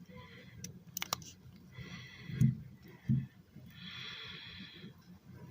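Plastic model kit parts being handled and pressed together: a few light clicks in the first second, a couple of dull knocks in the middle, and two long breaths close to the microphone.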